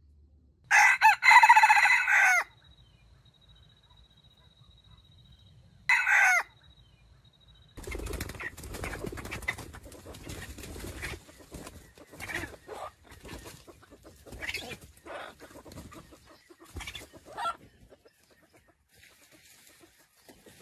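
Red junglefowl rooster giving a short, stuttering crow with a break in it, then a brief second call about four seconds later. After that, several seconds of irregular rustling and scuffing noise.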